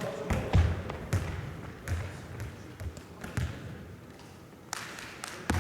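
A jokgu ball being kicked and bouncing on the court: a run of sharp, irregularly spaced thuds, about eight of them, the loudest about half a second in and just before the end.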